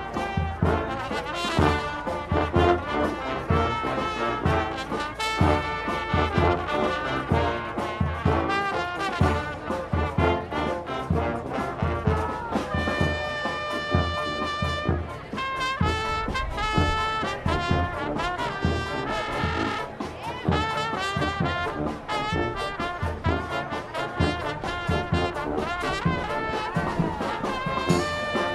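A marching brass band playing live: trumpets and trombones over a steady percussion beat.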